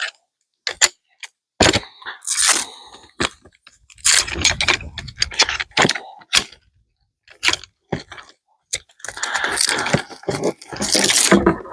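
Lightweight camp chair being assembled: its frame poles clicking and clattering together, with stretches of the fabric seat and bag rustling.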